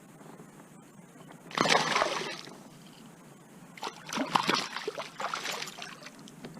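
Water splashing and sloshing as a hooked bass thrashes at the surface: one loud splash about a second and a half in, then a run of smaller splashes a few seconds later.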